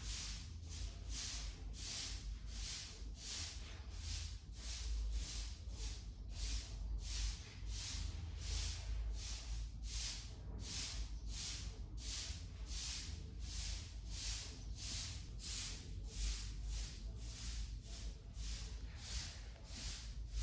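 Broom sweeping a yard in steady, rhythmic strokes, about two scratchy swishes a second.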